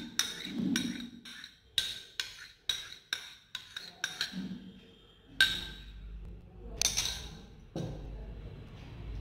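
Metal spoon scraping and tapping against a ceramic cup, a quick run of ringing clinks followed by a few spaced single clinks, as the yeast mixture is knocked out of the cup into a bowl of flour.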